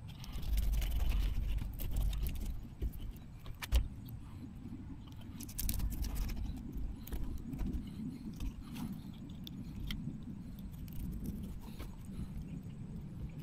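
Knife filleting a fish on a plastic cutting board: scattered clicks and scrapes of the blade through flesh and bone and against the board. A low rumble comes and goes, heaviest in the first couple of seconds.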